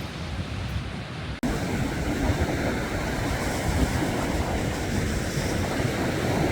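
Wind rumbling on the microphone, then an abrupt cut about a second and a half in to sea surf washing steadily onto the shore, with wind on the microphone.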